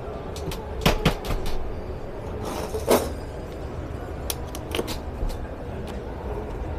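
Knocks and clicks of a van's fold-down bed being lowered over the cargo garage as its hinged panels and cushion are handled and set in place. A brushing slide ends in a louder thump about three seconds in.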